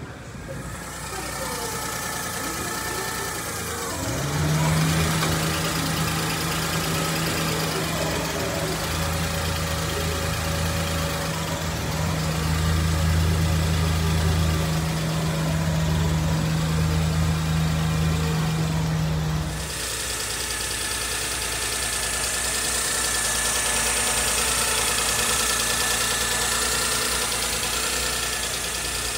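The small three-cylinder engine of a 1996 Mazda Scrum kei truck running steadily at idle. Through the middle stretch a strong steady low hum sits over it, then stops abruptly.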